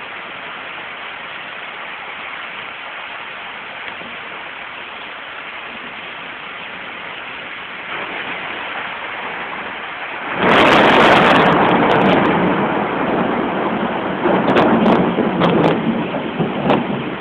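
Steady rain falling, then about ten seconds in a loud clap of thunder breaks out and rumbles on, with several more sharp cracks near the end.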